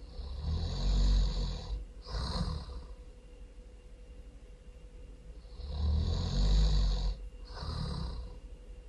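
A person snoring loudly: two snores about five seconds apart, each a long snore followed by a shorter one.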